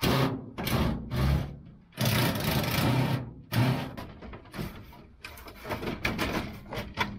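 Product compartments of an old vending machine clattering and scraping as they are worked loose and pulled by hand: a run of loud rattling clanks in the first four seconds, then lighter clicks and taps.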